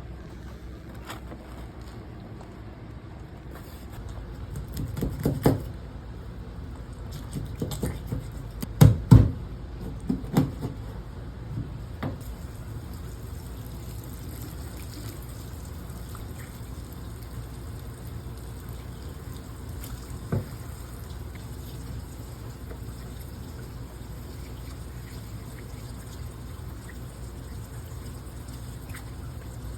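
Water sloshing and lapping over a steady low rumble, broken by a few dull thumps, the loudest about nine seconds in.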